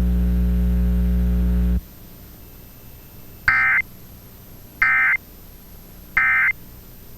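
Steady low electrical hum with many overtones that cuts off about two seconds in, then three short Emergency Alert System end-of-message data bursts, warbling digital tones about 1.3 seconds apart, marking the end of the alert.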